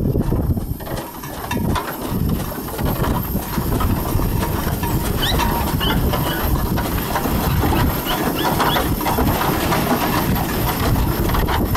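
1886 Scheidler steam traction engine running as it drives along, its steam engine and gearing making a steady mechanical clatter together with the rumble of its steel wheels on the road.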